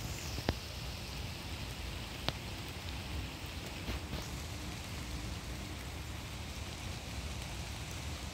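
Light rain falling steadily, an even hiss, with two sharp ticks about half a second and two seconds in.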